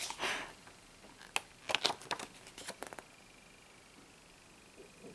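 Glossy paper pages of a CD booklet being handled and turned: a short rustle at the start, then a few light clicks and rustles over the next couple of seconds.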